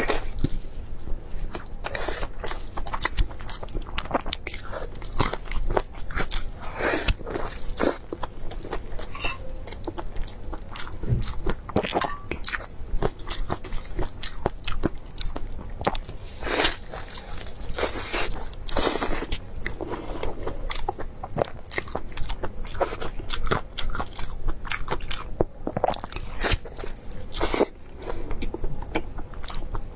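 Close-miked biting and chewing of crispy fried balls with a meat filling: many irregular crunches one after another, mixed with chewing.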